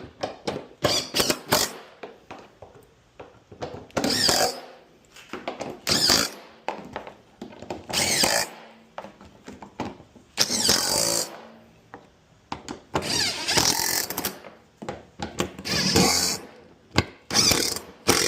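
Power drill/driver running in short repeated bursts of about a second each, driving fasteners home during washer reassembly, with a cluster of sharp clicks before the first burst.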